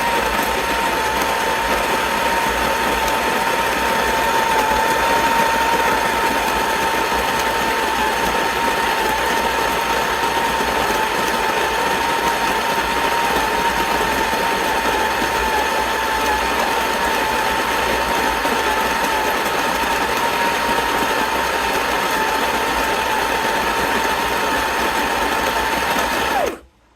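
Ollygrin electric conical burr coffee grinder running steadily, its motor whining at a constant pitch as the burrs grind. It cuts off suddenly near the end.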